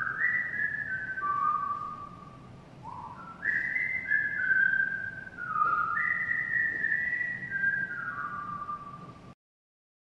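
A man whistling a tune: phrases of held notes that step downward, each phrase beginning with an upward slide. It cuts off abruptly about nine seconds in.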